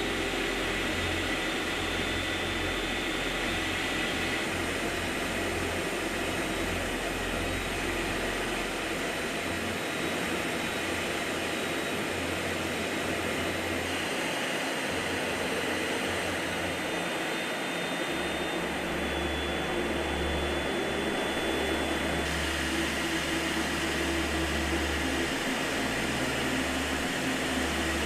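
A steady rushing noise with a low hum underneath, holding an even loudness throughout.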